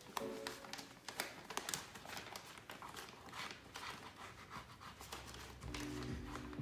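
Paper application tape being peeled off vinyl lettering on a sign board, a run of dry crackling and crinkling.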